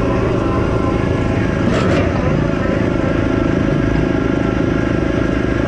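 Compact track loader's diesel engine running steadily at a constant speed, with a short sharp noise about two seconds in.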